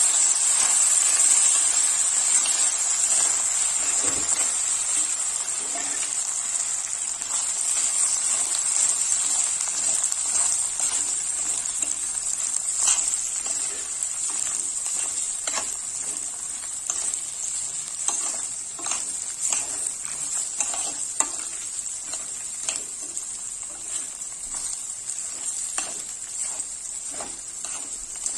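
Rice and browned vermicelli sizzling in hot oil in a stainless steel pot as they are toasted for pilaf, stirred with a metal spoon that scrapes and clinks against the pot. The sizzle grows gradually quieter while the spoon clicks come more often in the second half.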